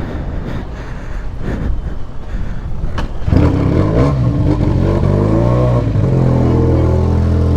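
Benelli 500 parallel-twin motorcycle engine on its stock exhaust catching about three seconds in, just after a sharp click. It revs up and down briefly, then settles into a steady idle.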